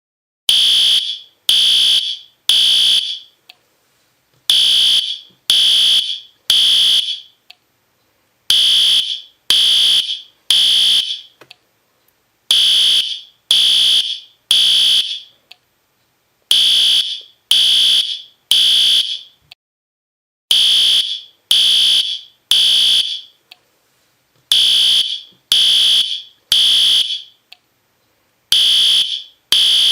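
System Sensor P2R fire alarm horn sounding loudly in the temporal-three evacuation pattern: three high-pitched half-second blasts, then a pause, repeating about every four seconds.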